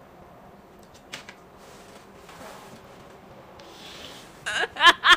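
Quiet tabletop handling, with chopsticks and a paper instant-noodle cup being moved on the table and a small click about a second in. Near the end comes a short, loud voice-like sound whose pitch wavers up and down.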